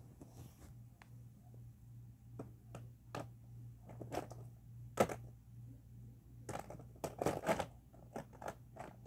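Markers and paper being handled: scratchy rustles with light clicks and taps, the sharpest about five seconds in, over a low steady hum.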